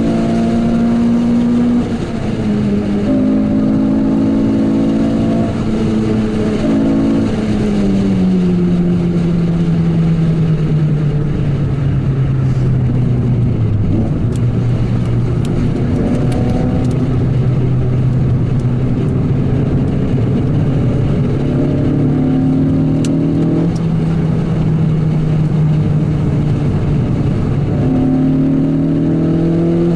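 Renault Clio 197 R27's 2.0-litre four-cylinder engine heard from inside the cabin while driving. It holds high revs, dips briefly about two seconds in, then the revs fall steadily and it runs low and steady with road noise, rising again near the end as it accelerates.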